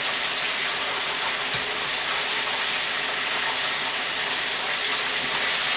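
Floured chicken thighs deep-frying in hot vegetable oil in an electric skillet: a steady, even sizzle.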